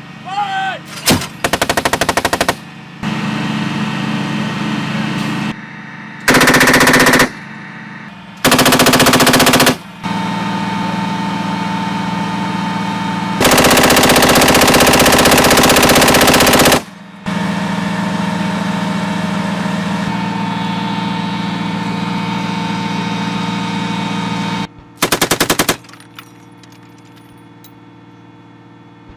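Belt-fed machine guns (M240 and M249) firing about five loud bursts of automatic fire, the longest running about three seconds in the middle. A quieter steady sound of more firing continues between the bursts.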